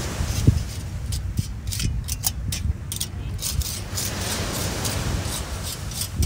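Metal tongs clicking and scraping on a small portable grill's wire grate, in quick irregular taps, over a steady low wind rumble on the microphone.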